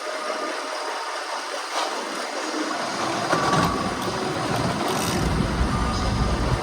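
Fishing boat's engine running steadily with a constant rushing noise, a low rumble building and growing louder about halfway through.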